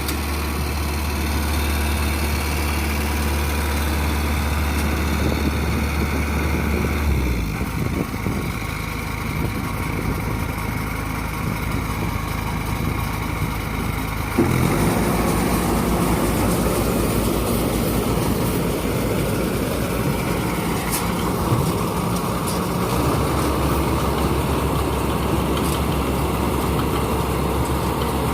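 Maxxi Bimo 102L rice combine harvester's engine running continuously, its steady low drone changing abruptly a few times as the machine works.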